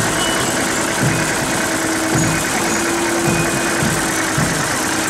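Vehicle engine idling steadily, with a low, even pulse just under twice a second.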